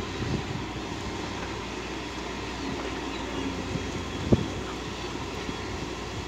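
Distant diesel engines of a crawler excavator and a dump truck running steadily at work, with small knocks throughout and one sharp knock a little over four seconds in.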